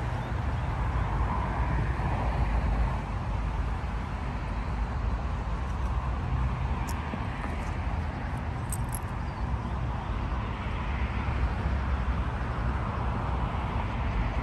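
Steady outdoor noise of distant road traffic, with an uneven low rumble of wind buffeting the microphone. A few faint, brief high chirps come about halfway through.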